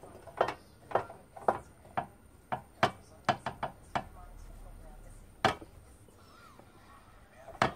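Copper pan being handled on a cast-iron gas burner while molten tin is wiped over its inside: a run of sharp metallic knocks, about two a second, thinning to single knocks after about four seconds.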